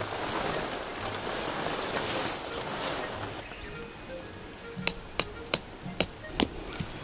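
A tent peg being driven into the ground with a hammer: five sharp strikes in quick succession, roughly three a second, about five seconds in. Before them comes a few seconds of rustling noise.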